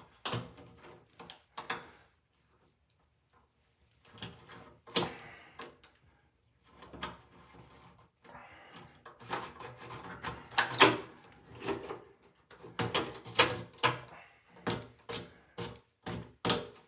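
Plastic hair snake being pushed down and pulled back up a shower drain: a run of irregular scrapes and clicks against the drain, with a quiet pause about two seconds in.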